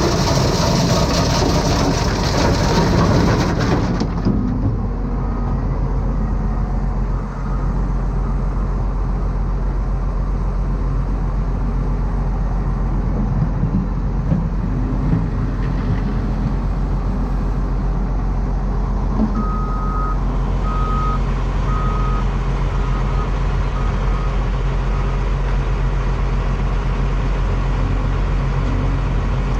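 Dump truck engine running steadily, with a string of five or six short reversing beeps about a second apart partway through. A louder, noisier stretch in the first few seconds cuts off suddenly.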